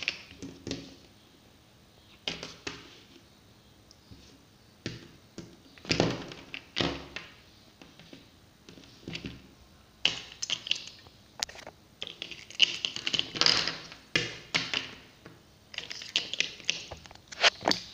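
Small plastic Littlest Pet Shop figurines being handled and set down on a table: an irregular run of light taps and knocks with short scrapes, busier in the second half.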